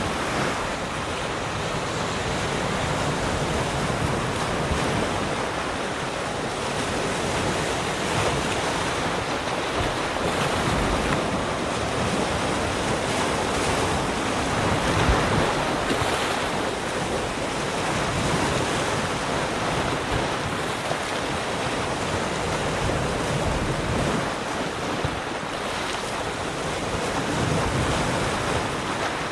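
Small sea waves lapping and washing around rocks, a steady wash that swells gently now and then.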